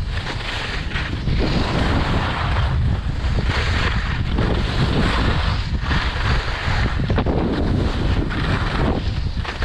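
Wind buffeting a GoPro action camera's microphone at skiing speed, a steady low rumble, with the hiss and scrape of skis over packed, groomed snow swelling and fading every second or two as the skier turns.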